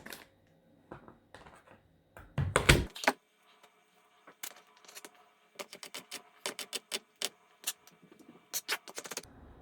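Kitchen knife chopping garlic on a chopping board: a loud thump about two and a half seconds in, then a run of quick, irregular sharp taps of the blade on the board.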